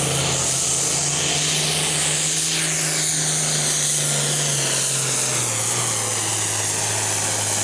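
International 3688 Super Farm pulling tractor's turbocharged diesel running flat out as it drags the weight sled, with a high turbo whistle and hiss above the engine note. The engine pitch drops noticeably about five and a half seconds in.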